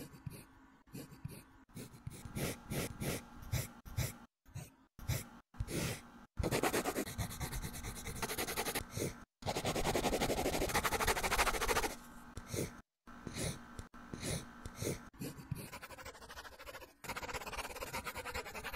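Stylus scratching on a drawing tablet. Short separate strokes are followed by a long stretch of rapid back-and-forth hatching strokes in the middle, then more short strokes.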